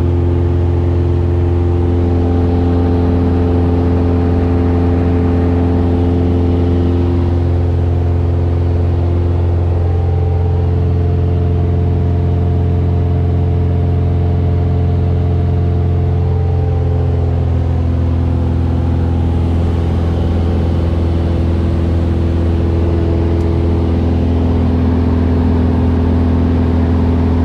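A Mooney M20F's 200 hp Lycoming IO-360 four-cylinder engine and propeller running hard through takeoff and climb-out, heard from inside the cockpit. It is a loud, steady drone with a deep hum, and its higher tones shift slightly in pitch a couple of times.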